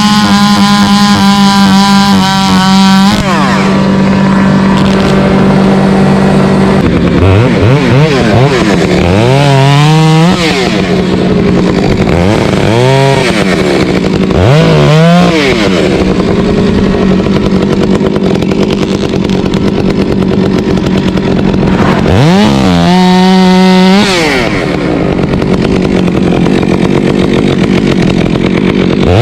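Two-stroke chainsaw held at high revs, then eased back about three seconds in and revved up and down several times.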